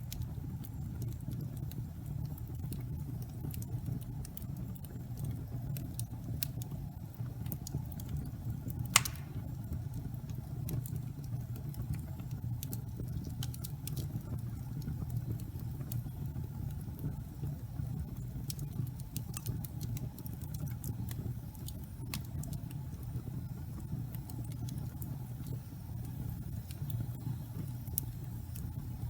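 Wood fire in a fireplace crackling: a steady low rumble of the flames with scattered sharp snaps, and one loud pop about nine seconds in.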